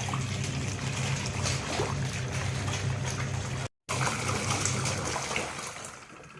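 Washing machine running, water splashing and trickling over a steady low motor hum. The sound cuts out abruptly for a moment partway through and fades down near the end.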